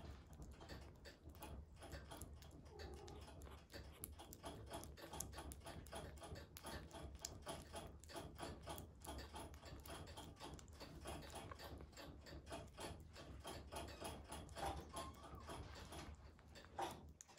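Minuet kitten eating wet cat food, its mouth making quiet, rapid smacking and chewing clicks several times a second: a kitten being weaned onto solid food.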